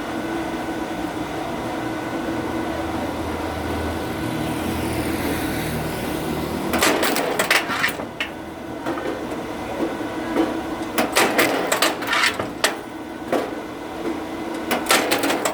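A machine hums steadily, then from about seven seconds in come irregular sharp knocks and clatters, in clusters, of oak firewood being split and handled.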